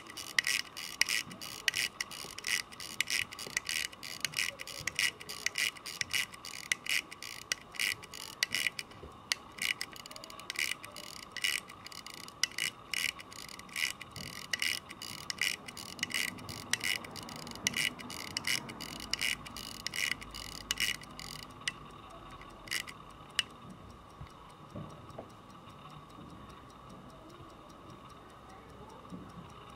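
Burlington 21-jewel pocket watch ticking, rapid and even, close to the microphone. About two-thirds of the way through, the ticks become much fainter.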